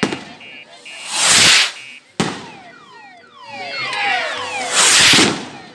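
Fireworks rockets set off one after another. There is a rushing hiss of a launch about a second in and another near the end, and a single sharp bang about two seconds in.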